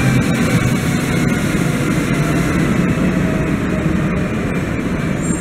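Pair of Newag Impuls electric multiple units running past along the platform: a steady rumble of wheels on rail with scattered clicks and a faint whine that falls gently in pitch as the train slows on its arrival. The sound eases slightly as the end of the train passes.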